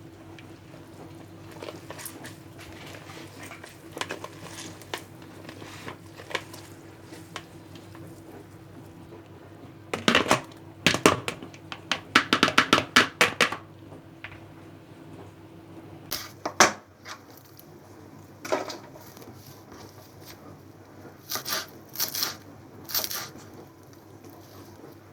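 Household handling sounds: scattered clicks and knocks, with a quick run of rattling clatter around the middle. A steady low hum runs underneath and stops about two-thirds of the way through, just as a sharp knock sounds.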